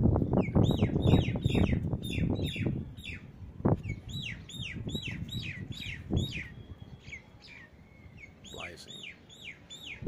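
A bird calling in a fast run of short, repeated notes that each fall in pitch, pausing briefly near the end before resuming. Wind rumbles on the microphone over the first few seconds.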